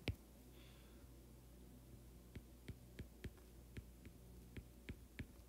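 Faint stylus tapping on a tablet's glass screen during handwriting: one sharper tap at the start, then light irregular ticks from about two seconds in, over a low steady hum.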